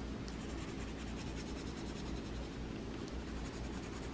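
Coloured pencil scratching on drawing paper in quick, short, repeated strokes, over a low steady hum.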